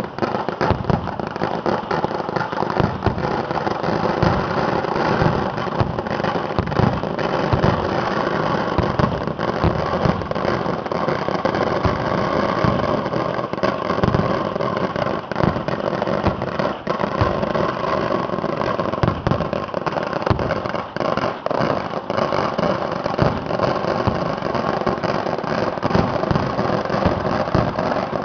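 Fireworks display going off in a dense, unbroken run of firecracker bangs and crackling, too many to count, with no pause.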